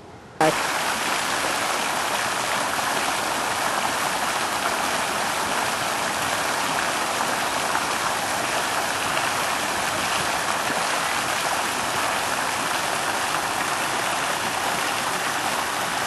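Steady rush of running water, starting abruptly with a click about half a second in.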